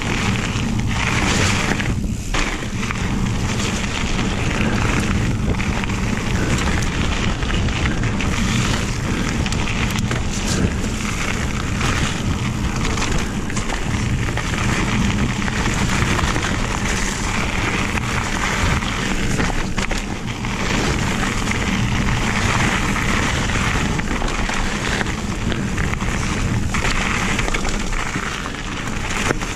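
Mountain bike running fast down a gravel trail: a steady rush of tyre noise and wind buffeting the camera's microphone, with scattered short knocks from bumps.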